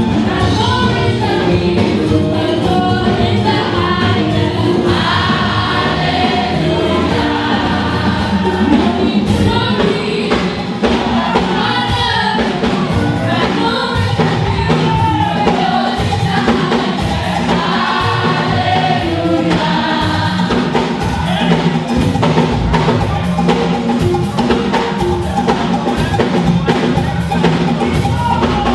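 A choir singing a gospel song with drums and percussion keeping a steady beat.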